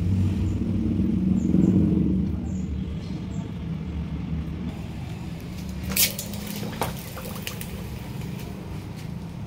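A hot glass bottle, heated by a burning string wrapped round it, is plunged into a bucket of cold water about six seconds in. There is one sharp sudden sound and a smaller one under a second later; the cold shock is meant to crack the glass along the string line. A low rumble, loudest in the first two seconds, runs underneath.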